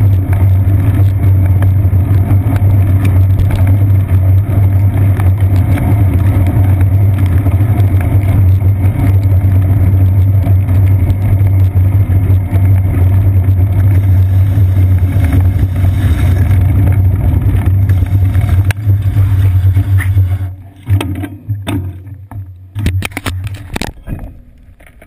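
Steady low rumble of road vibration and wind from a bicycle riding on wet pavement, picked up by a seat-post-mounted GoPro in its housing. About twenty seconds in the rumble drops away, leaving scattered knocks and clicks.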